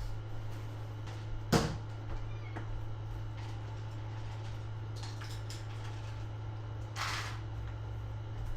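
Kitchen handling sounds while a drink is being made: a sharp knock about a second and a half in, a few small clicks, and a short rustle near the end, over a steady low hum.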